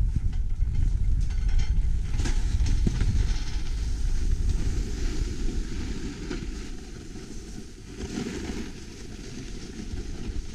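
Wind rumbling on a GoPro helmet-camera microphone while sliding over groomed snow, with the hiss and scrape of the skis or board on the snow swelling now and then. It quietens for a few seconds near the end as the pace slows.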